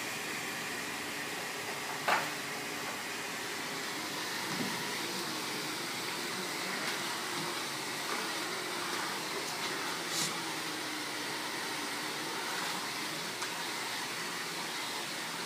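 Canister vacuum cleaner running steadily as its floor head is pushed across a tiled floor, with a short knock about two seconds in.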